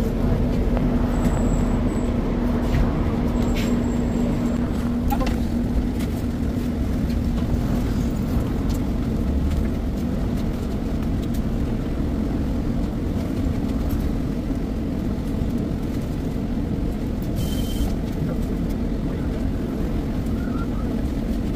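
City bus interior noise sped up four times: a steady engine and road rumble with a hum over the first few seconds, scattered small clicks and rattles, and a couple of short high beeps.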